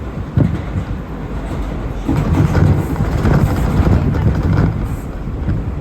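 R179 subway car running on the track, a steady deep rumble with a sharp knock about half a second in, then louder rattling of wheels and car body from about two seconds in.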